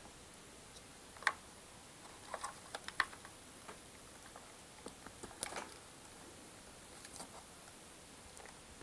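Faint, scattered clicks of hand wire strippers closing on a thin wire to strip back its insulation, a few separate clicks with a small cluster of them.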